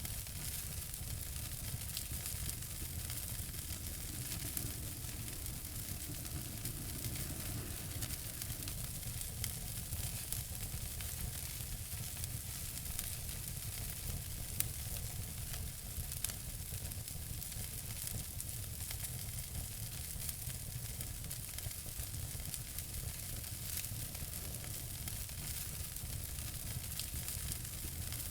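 Wood fire burning in a fireplace: a steady hiss with continuous small crackles and a couple of sharper pops near the middle.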